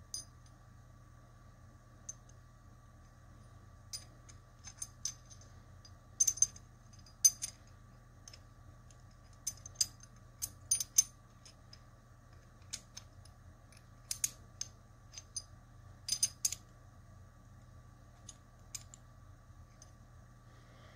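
The two cast-metal pieces of a Hanayama Cast Diamond puzzle clicking and clinking against each other as they are twisted and slid. Irregular sharp taps with a brief high metallic ring come singly and in quick clusters, busiest in the middle stretch.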